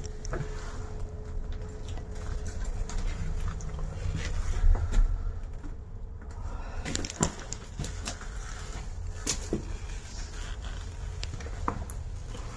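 Scattered clicks and knocks over a steady low rumble, with the rumble swelling briefly about halfway through.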